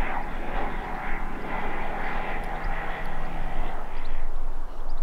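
An aeroplane flying overhead, a steady engine drone that fades away near the end.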